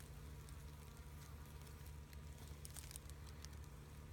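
Faint rustling and light crackling of dry leaf litter, with a few soft clicks a little past the middle, over a steady low hum.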